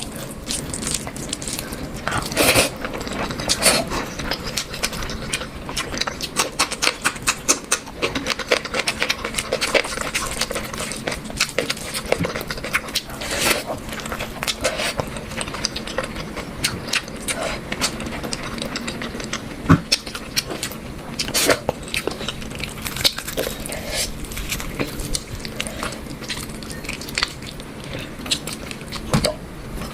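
A person eating close to the microphone: chewing and lip-smacking, with many short, irregular clicks.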